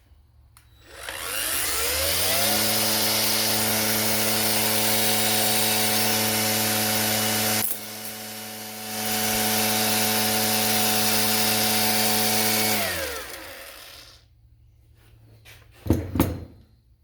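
Bauer angle grinder fitted with a string-trimmer cord head spins up about a second in and runs at a steady whine. About eight seconds in there is a sharp click and the sound drops for about a second before coming back, then the motor winds down. Two loud knocks near the end.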